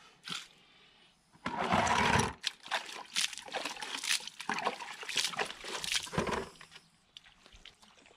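Water splashing and trickling in a plastic bucket as a hand scoops it out: one loud splash about a second and a half in, then a few seconds of smaller splashes and drips.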